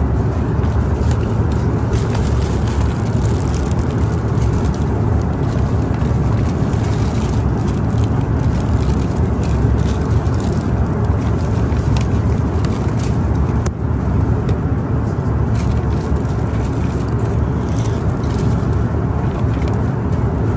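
Steady airliner cabin noise in flight: the continuous low rumble and rush of the engines and airflow. Faint crinkles of a plastic snack wrapper being handled come and go over it.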